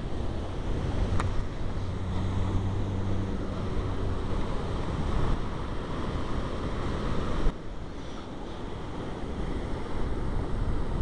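Wind buffeting the microphone over street traffic, with a vehicle's engine humming for a couple of seconds near the start. The noise drops abruptly about two-thirds of the way through.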